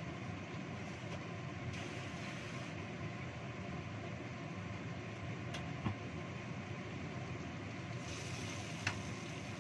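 Red chilli spice paste frying in oil in a wok, a steady sizzle, with two sharp knocks in the second half as a wooden spatula stirs the pan.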